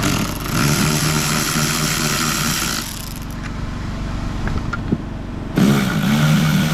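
Cordless power tool spinning nuts off the studs that hold the fuel tank access, a motor whine with a rapid rattling hammer. It runs for about three seconds, stops, and starts again near the end.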